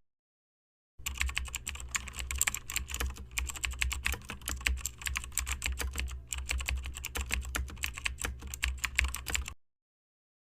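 Rapid, irregular clicking over a steady low hum, stopping abruptly near the end.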